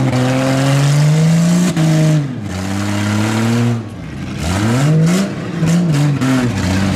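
Demolition-derby pickup truck engines revving hard, the pitch climbing and dropping again and again, with a few sharp knocks in the second half.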